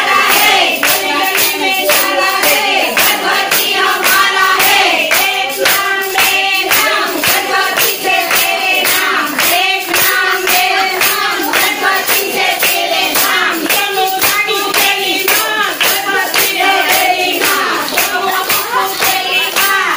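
Group of people singing together with steady rhythmic hand clapping, about two to three claps a second.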